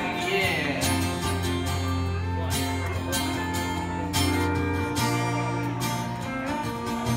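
Live country instrumental break: acoustic guitar strummed in a steady rhythm under sustained, gliding pedal steel guitar notes.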